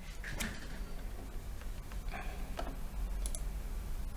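A few scattered clicks of a computer keyboard and mouse being worked, with a pair of sharp high ticks a little past three seconds in, over a low steady hum.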